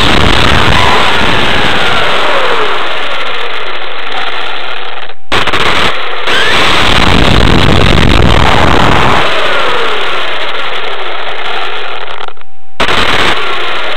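Onboard sound of a Kyosho Inferno GT RC car fitted with a Novak HV Pro 5.5 brushless motor, driving: a loud, rough rushing from the running gear and ground, with the motor's thin whine gliding up and down in pitch as the throttle changes. The sound cuts out briefly twice, about five seconds in and near the end.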